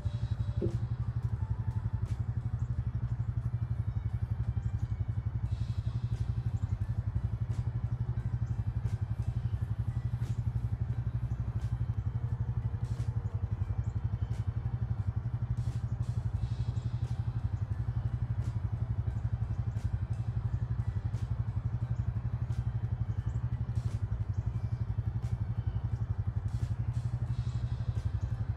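ATV engine left idling, a steady low drone.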